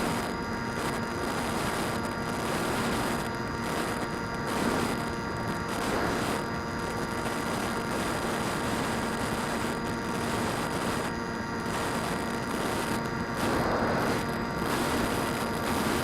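Phantom quadcopter's motors and propellers whining steadily in flight, heard from a keychain camera mounted on the drone, over a constant hiss of rushing air. The pitch swells briefly a few times, about five and six seconds in and again near the end.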